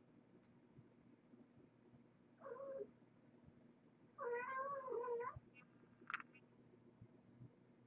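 Kitten meowing twice: a short meow about two and a half seconds in, then a longer one about four seconds in. A brief sharp click follows.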